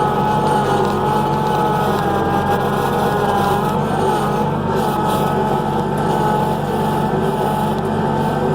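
Skid steer engine running steadily under load, with a constant whine held above the engine drone.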